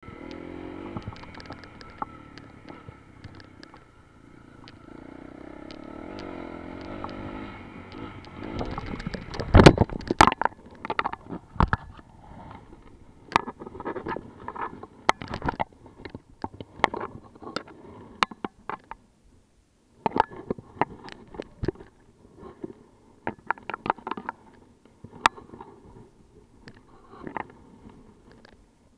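A dirt bike's engine runs for the first eight seconds or so, rising in pitch toward the end of that stretch. Then comes a loud thud, followed by a long string of irregular knocks, clatters and scrapes with brief pauses between them.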